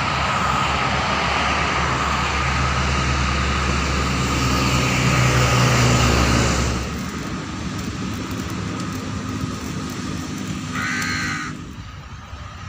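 An engine running with a rushing noise, growing louder until about two-thirds of the way through and then dropping away. A crow caws once near the end.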